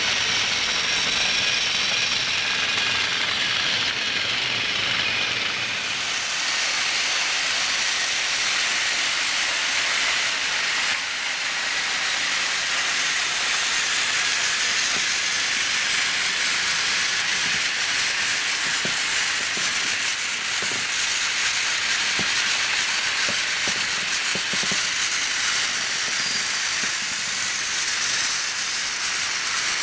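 Several battery-powered toy trains running at once on plastic track: a steady whirr of small electric motors and rolling wheels, with light clicks over the track joints in the second half.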